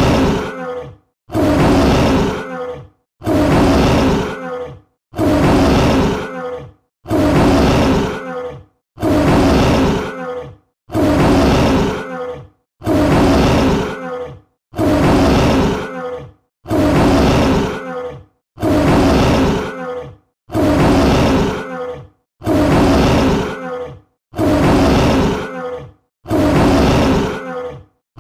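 Tiger roaring: the same short roar repeated over and over, one about every two seconds, with a brief silence between each.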